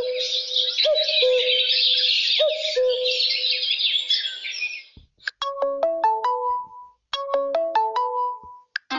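Huawei Y6 Pro ringtones playing: first a birdsong-style tone of dense chirping over a repeating lower note with small swoops, stopping about four and a half seconds in; then a short melody of quick bright notes, played twice.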